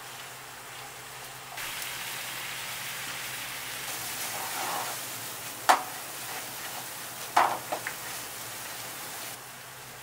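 Pasta in cream sauce sizzling in a frying pan over a gas burner as it is stirred with wooden chopsticks. The sizzle starts about a second and a half in and falls away near the end. Two sharp clacks of the chopsticks or pan ring out, at about six and seven and a half seconds in, followed by a few smaller knocks.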